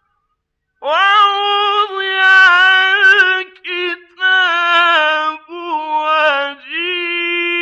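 A male Quran reciter chanting in the melodic Egyptian style, with long high held notes that waver and turn, broken by short breaths. The voice enters about a second in after silence.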